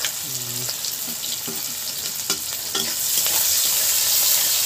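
Chopped onions and bay leaf sizzling in hot oil in an iron kadai, stirred with a metal spatula that scrapes against the pan now and then. The sizzle grows louder about three seconds in.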